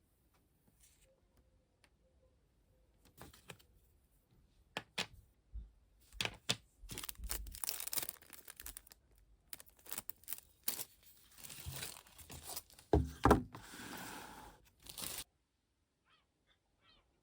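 Close handling noises: paper or plastic rustling and tearing with many sharp clicks, strongest in the second half, and a heavier knock about 13 seconds in.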